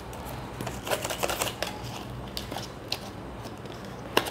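A small cardboard cosmetics box and its paper packaging handled by hand: clusters of light clicks and crinkles about a second in and again after about two and a half seconds, with a sharper single click near the end.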